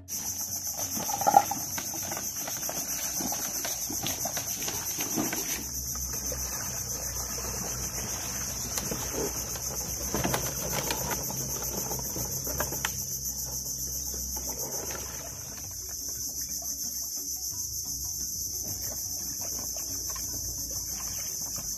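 Steady, high-pitched chorus of insects calling without a break, with faint scattered knocks and a low rumble beneath.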